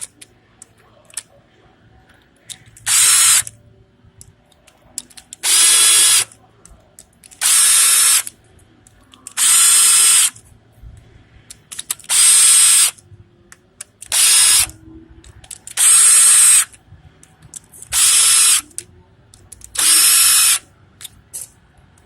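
A power drill run in short bursts of about a second each, repeated about ten times roughly every two seconds.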